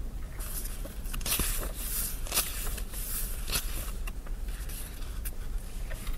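Paper rustling and scraping as the pages of a book are turned and handled: a string of short, irregular rustles lasting several seconds, over a low steady hum.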